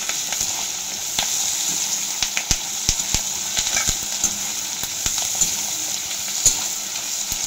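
Sliced onions, peanuts and curry leaves sizzling in hot oil in a kadhai over a full flame, stirred with a steel spoon that scrapes and clacks against the pan at irregular moments.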